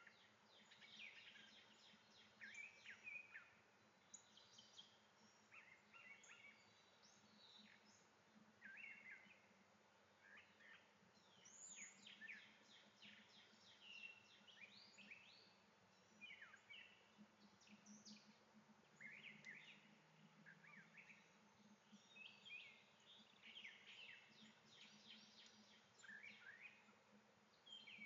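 Faint chorus of small birds chirping, short quick calls and trills overlapping one after another, over a low steady hum.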